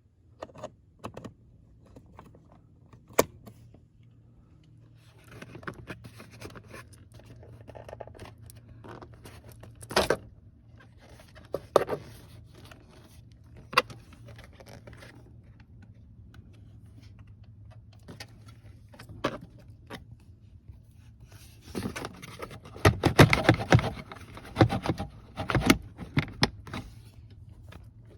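Hands working plastic trim and parts off around a car's under-dash fuse box: scattered sharp clicks and knocks, then a busier run of rattling and scraping near the end.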